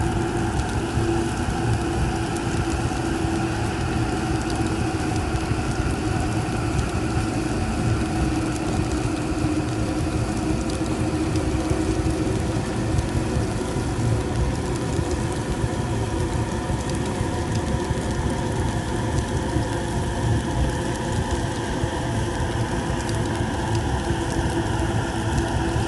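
Steady, dense rumbling drone with a held low tone and fainter higher tones layered over it, a dark horror ambience sound effect.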